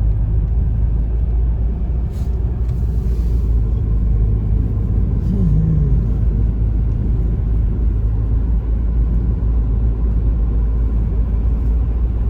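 Steady low rumble of a car driving on a snowy road, engine and tyre noise heard from inside the cabin.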